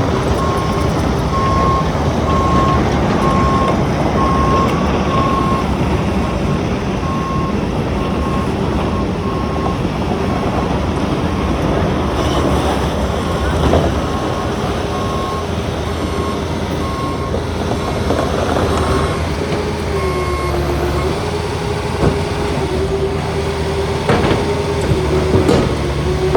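Heavy construction vehicle's diesel engine running, with its backup alarm beeping in a steady series that stops about three-quarters of the way through. A steady machine whine sits under it, and a few knocks come near the end.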